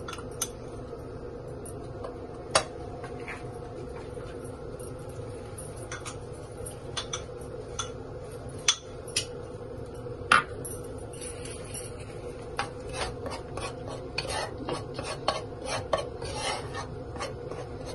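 A metal spoon clinks and scrapes against a non-stick wok as gram flour (besan) is stirred to roast it. There are a few separate clicks in the first half, then quicker, more frequent taps and scrapes in the second half, over a steady low hum.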